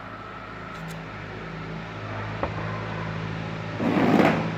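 A steady low mechanical hum with a click about two and a half seconds in and a short, louder rustling burst near the end.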